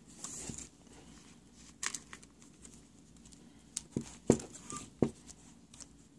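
Handling noise: a brief rustle at the start, then about five scattered sharp clicks and knocks as equipment is set up and handled.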